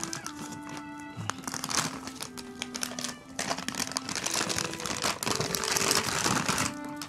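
Background music with a simple melody of held notes. Over it, from about three seconds in to near the end, a loud rough rustling from a rubber grooming brush stroking a cat's fur.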